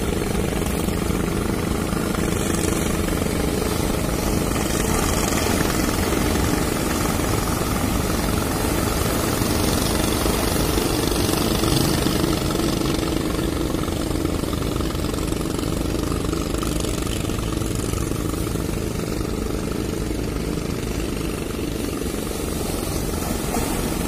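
Big ocean waves breaking and surf washing over shore rocks: a steady, loud rushing noise, with a choppy low rumble of wind buffeting the microphone.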